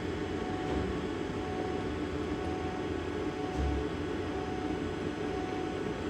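Steady hum of running workshop machinery, with a faint constant tone over a low rumble and a brief low thump about three and a half seconds in.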